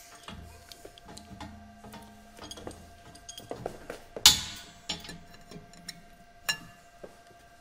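Shop press being worked down onto a bolt used as a punch, driving a stepper motor's shaft out, with light mechanical clicks and creaks. Two sharp cracks come from the parts under load, the louder about four seconds in and a weaker one near the end.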